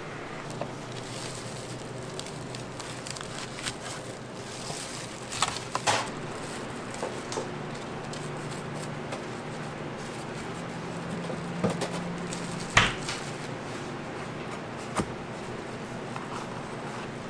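Food-prep handling sounds: scattered light clicks and knocks of metal utensils and a tray over a steady low hum of room noise, with one sharper knock about two-thirds of the way through.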